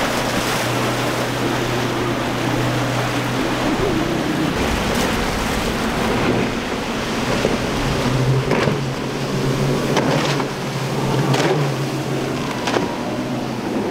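Powerboat outboard engines running at speed through choppy inlet water: a steady engine drone under the rush of spray and wake. In the second half the center console on triple Mercury 300 hp outboards comes through, and its hull slaps hard against the waves several times.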